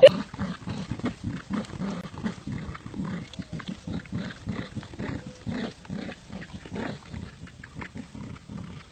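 Dogs growling in play while tugging on a toy, in quick uneven pulses.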